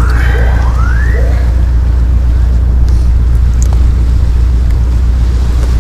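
Strong wind buffeting the microphone with a steady low rumble, and over it a distant whooping alarm: two rising sweeps in the first second or so before it stops.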